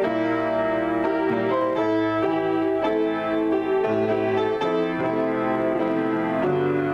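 Piano played solo in an improvised passage: sustained chords and melody notes, with new notes struck about once a second.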